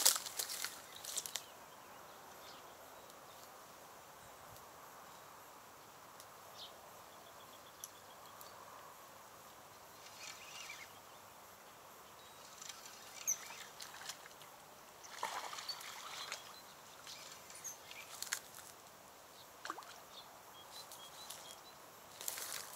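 Dry reed stems rustling as someone moves and pushes through a tall reed bed, in short bursts: one at the start, then several from about ten seconds in, with quiet stretches between.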